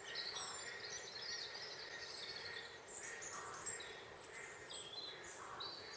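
Faint birds chirping in the background, many short high calls over a low steady hiss.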